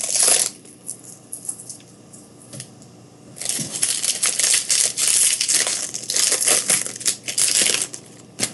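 Plastic trading-card pack wrappers crinkling and rustling as packs are handled and torn open: a short crinkle at the start, then a few seconds of dense crinkling from about three and a half seconds in until near the end.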